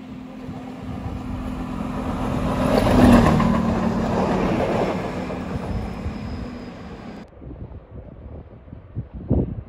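A Stadler Regio-Shuttle RS1 diesel railcar runs in and passes close by. Its steady engine hum swells to a peak about three seconds in, then fades. About seven seconds in the sound cuts off abruptly to a quieter background, with a brief thump near the end.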